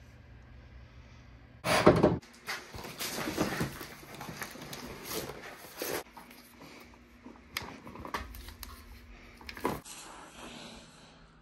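Furnace blower motor and its sheet-metal blower housing being handled during an X-13 blower motor replacement: a loud metal knock about two seconds in, then a run of irregular clanks and rattles, and another knock near the end.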